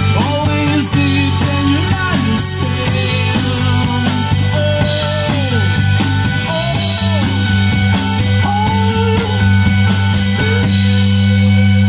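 Live rock band playing: an electric guitar lead with bent, sliding notes over bass guitar and drums. About halfway through, a long low note is held under the guitar line.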